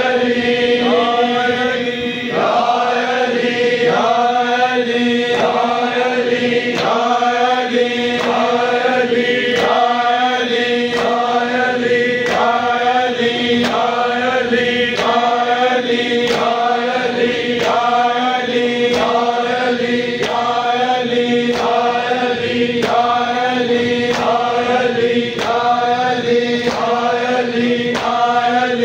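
Devotional chanting in a noha intro: voices repeat a short phrase about once a second over a steady held drone.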